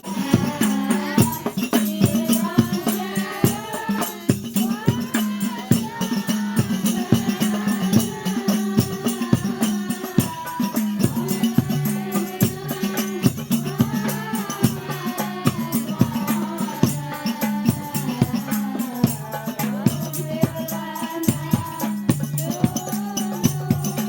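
Hadrah ensemble playing Islamic devotional music: rebana frame drums and jingling percussion keep up a fast, dense rhythm while voices sing a melodic sholawat line.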